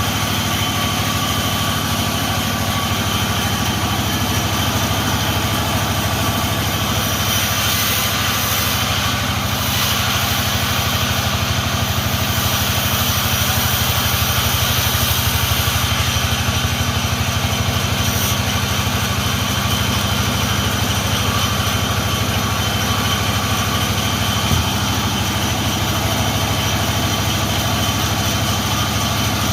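Engine of a log-sawing machine running steadily at an even speed.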